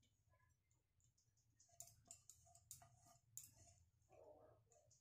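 Near silence, with a handful of faint light clicks and taps in the middle of the stretch as ground spices are tipped off a plate into a bowl of gram flour.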